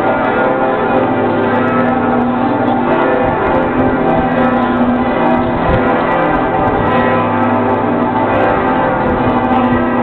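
Full peal of the Cologne Cathedral bells: several large church bells ringing together in a dense, continuous, overlapping sound at a steady level.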